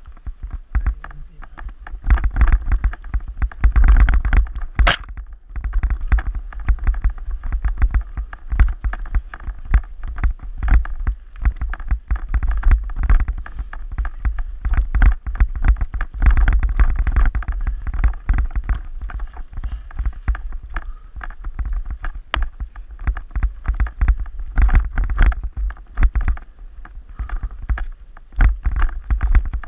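Mountain bike ridden over a rough forest singletrack, heard from a bike-mounted GoPro: continuous rattling and knocking of the bike and camera mount over roots and stones, over heavy wind rumble on the microphone. A sharp click stands out about five seconds in.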